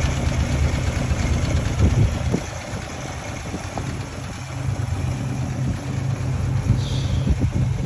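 Toyota AE86's engine idling steadily, its engine, transmission and differential oils freshly changed.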